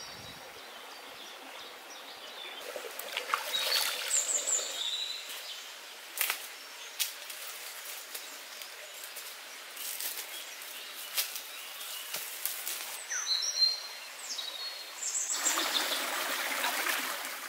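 Woodland birds calling in short, high chirps several times over a steady rush of stream water running over rocks; the water grows louder near the end.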